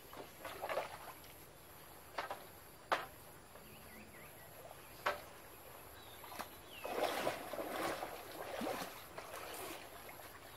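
A few sharp hollow knocks, a second or two apart, as bamboo pieces are tapped and fitted into a bamboo frame's joints, followed about seven seconds in by a few seconds of water sloshing and splashing around people wading waist-deep in the water.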